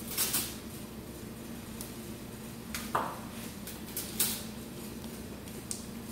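Steel laparoscopic instruments clinking and rattling against each other and the perforated stainless-steel instrument basket as they are sorted and lifted out: a handful of separate sharp clanks, the loudest about three seconds in with a brief falling scrape, over a steady low hum.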